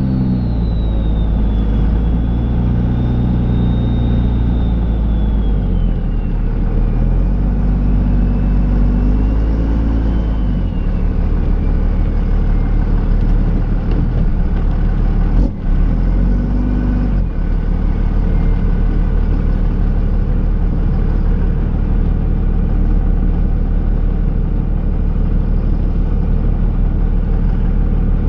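Dodge Ram's Cummins turbo-diesel engine running under varying load while plowing snow, its pitch stepping up and down several times. A thin high whine falls slowly in pitch during the first half.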